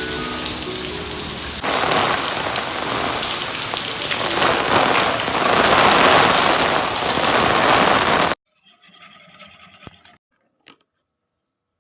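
Heavy rain pouring down, growing louder and swelling, then cutting off suddenly about eight seconds in. Soft background music plays over the rain for the first couple of seconds.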